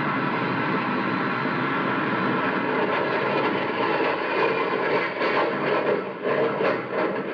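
Radio sound effect of a jet airplane in flight: a steady rushing engine noise that grows more uneven and swells in waves over the last couple of seconds.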